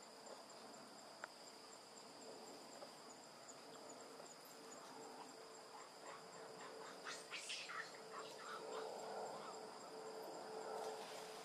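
Faint, steady insect chorus: a continuous high whine with a pulsing trill above it. A brief flurry of sharp high calls comes about seven seconds in.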